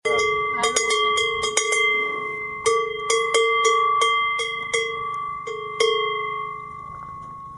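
A large cowbell on a cow's collar clanking irregularly as the cow moves its head, well over a dozen strikes in quick uneven clusters, each ringing on with a steady bell tone. The last strike comes about six seconds in and its ringing dies away.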